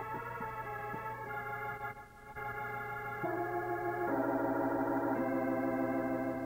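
Organ music playing slow, held chords that change every second or so, swelling louder about four seconds in.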